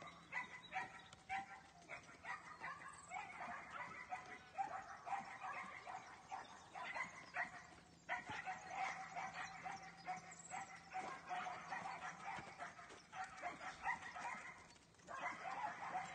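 Dog barking repeatedly, a fast run of short barks and yaps, with brief breaks about halfway and near the end. A faint steady hum lies underneath.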